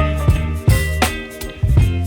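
Background pop music with a funky, upbeat groove: bass, guitar and a regular drum beat.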